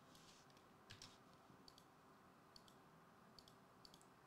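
Faint, scattered clicks of computer keyboard keys being pressed, singly and in quick pairs, against near silence.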